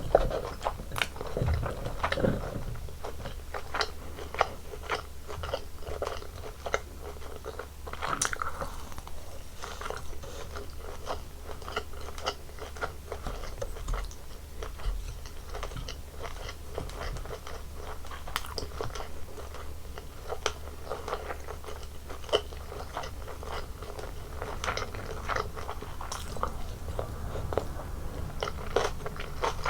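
Close-miked eating sounds: a person chewing and biting through a Korean home-style meal of rice, kimchi, bulgogi and seaweed, with a steady run of short, crisp crunches and mouth clicks.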